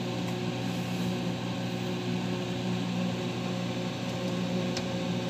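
Large egg incubator's electric motors running: a steady hum, with one faint click near the end.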